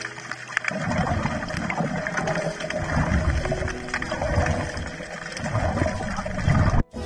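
Muffled underwater bubbling from scuba divers' exhaled breath, coming in irregular low rumbling bursts with scattered small clicks. It cuts off abruptly just before the end.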